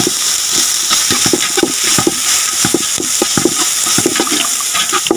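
Sliced onions sizzling in hot oil in a large aluminium pot, stirred with a spoon that scrapes the pot in repeated short strokes over a steady frying hiss.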